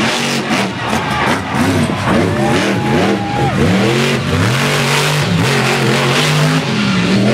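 Grinder monster truck's supercharged V8 engine revving hard during a freestyle run, its pitch climbing and dropping again and again, then held fairly steady for a couple of seconds.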